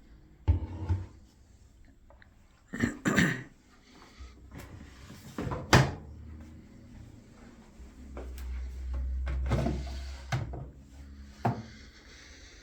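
Handling clunks of a front-loading washing machine being readied: several separate knocks and clacks, as of its door and detergent drawer being opened and shut, with a low rumble for about two seconds shortly before the end.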